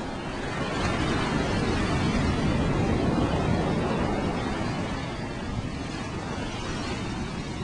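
Ocean surf washing in on the beach: a wave's rush swells about a second in, is loudest for a couple of seconds, then eases back, over a low rumble of wind on the microphone.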